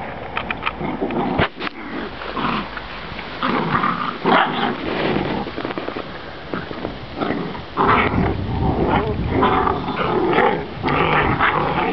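Seven-week-old Kangal puppies growling during rough play-fighting, the growls coming short and irregular and growing more frequent in the second half.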